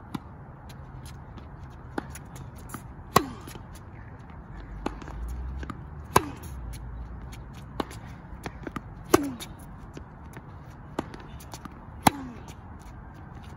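Tennis ball struck back and forth in a rally: four loud racket hits about three seconds apart, with fainter ball knocks between them.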